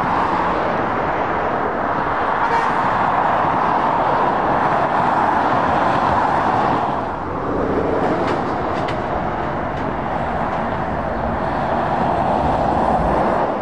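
Road traffic passing on a dual carriageway: steady tyre and engine noise from vans and an articulated lorry, easing briefly about seven seconds in before building again.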